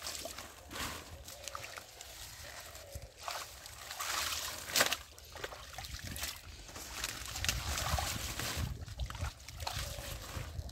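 Shallow muddy water sloshing and splashing as hands grope through the mud and pull up clumps of water hyacinth, in irregular splashes, the sharpest about halfway through.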